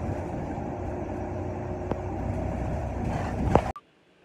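Steady engine and road rumble heard from inside a moving city bus, with a sharp knock about two seconds in and a louder thump near the end, after which the sound cuts off abruptly.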